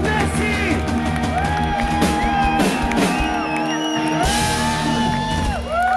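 Rock band playing: long, pitch-bending lead notes held over steady bass notes and drums, with cymbal crashes about two and three seconds in and a longer cymbal wash past the four-second mark.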